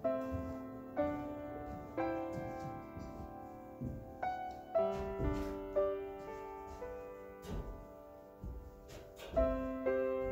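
Slow solo piano music: single notes and chords struck about once a second and left to ring away.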